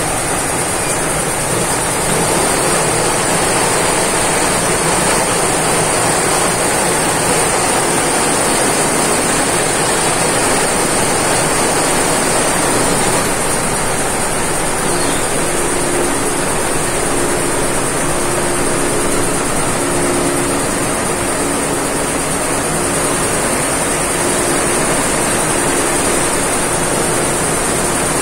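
Multi-head computerized embroidery machine running: a loud, steady, dense machine noise with a constant high hiss. From about halfway on, a low hum sounds in short stretches that start and stop repeatedly.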